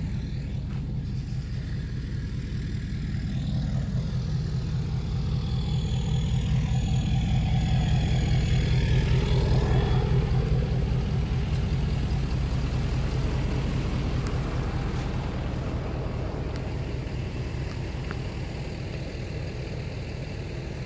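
Low rumble of a motor vehicle's engine, swelling to its loudest about nine seconds in and then fading.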